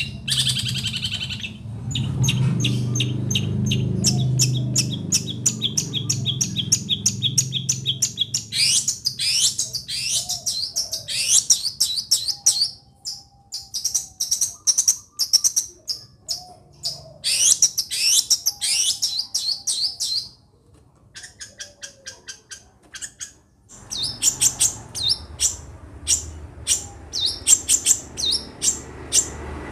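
Long-tailed shrike (cendet) singing a rapid, varied song of chirps, trills and fast repeated notes, in runs broken by short pauses.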